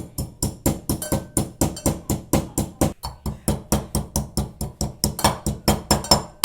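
Pestle pounding roasted carom seeds (ajwain) in a mortar to grind them fine: rapid, even strikes at about five a second, with a louder strike at the end.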